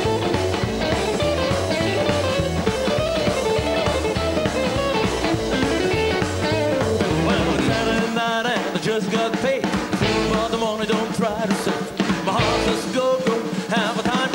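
Live rock'n'roll band playing: electric guitar, drum kit and upright double bass behind a male singer. About halfway through, the deep bass drops out, leaving voice, guitar and drums.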